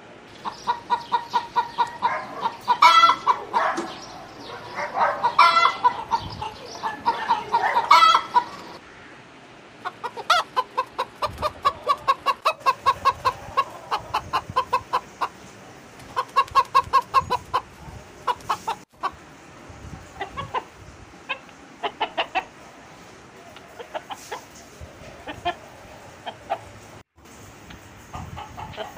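Feather-footed rooster clucking in long runs of quick, evenly spaced clucks, about four or five a second. Several louder calls come in the first eight seconds, and the clucks grow sparser in the last third.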